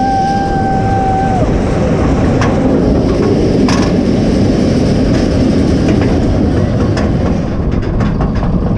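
Kumba's B&M steel roller coaster train climbing the chain lift hill: a steady clattering rumble of the lift chain and wheels, with a few sharp clicks. A steady tone sounds over it for about the first second and a half, then fades.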